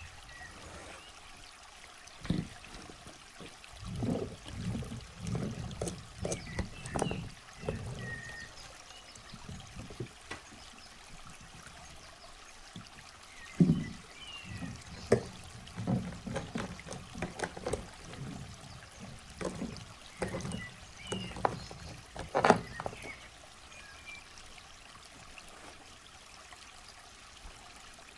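Hands handling toys in a sensory bin: irregular rustles and light knocks of plastic toy animals, rocks and water beads being moved about, in two busy spells with quieter gaps between.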